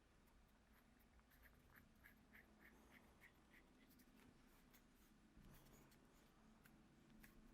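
Near silence: faint room tone with a short run of soft, faint ticks, about three or four a second, in the first half.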